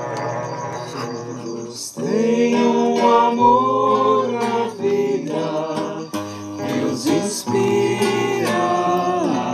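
Long curved horns sounding a steady droning note, cut off after about two seconds. Then a voice singing a song over acoustic guitar.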